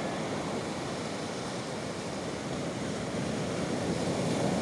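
Baltic Sea surf: waves breaking and washing in a steady rush of water noise, swelling a little near the end.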